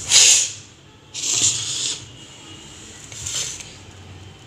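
Three short, hissy rustles, the first the loudest, over a low steady background hum.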